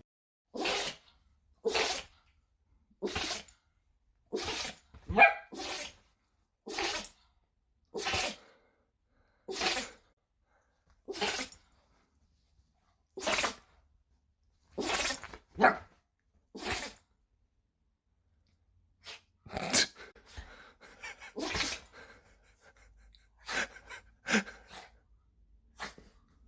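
A pet sneezing again and again: about twenty short, sharp sneezes, mostly a second or more apart, coming less regularly near the end.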